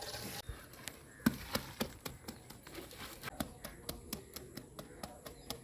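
Irregular sharp knocks and clicks, several a second, with one louder knock about a second in.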